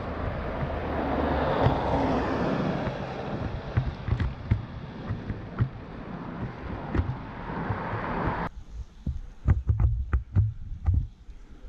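Wind rushing over the microphone of a camera on a moving road bike. About eight seconds in the steady hiss drops away suddenly, leaving irregular low thumps of wind buffeting the microphone.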